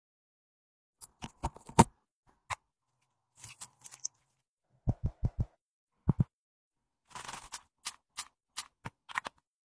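Sharp clicks and small taps of nail-care sound effects, with a run of four low thuds about five seconds in and two more about a second later. A short spray hiss comes about seven seconds in, followed by a few more clicks.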